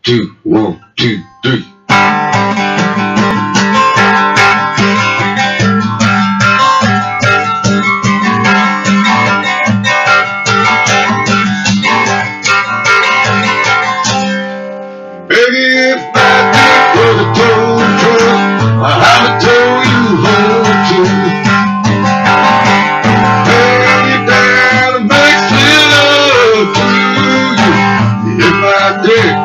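Acoustic guitar strummed steadily after a spoken count-in. A man starts singing along close to the microphone about halfway through, and the playing dips briefly just before that.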